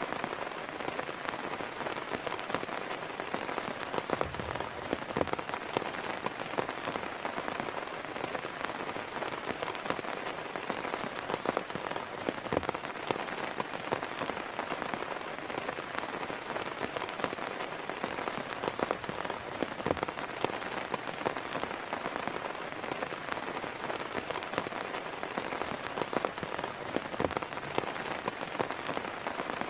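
Heavy rain falling steadily on a surface, a dense even hiss dotted with many separate drop hits.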